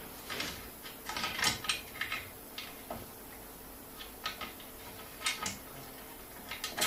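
Irregular light clicks and taps of small metal fittings being handled as a dome nut is screwed onto a threaded mounting stud.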